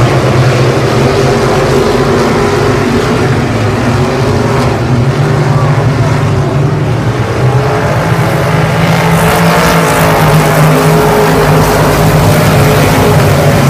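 A pack of hobby stock race cars running around a dirt oval, their engines loud and steady. About nine seconds in the sound grows brighter and a little louder as the cars come past close by.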